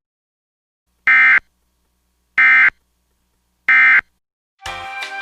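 EAS SAME end-of-message data bursts: three short, identical, loud buzzy bursts of digital tone about a second apart, marking the end of the emergency alert. Near the end, music begins.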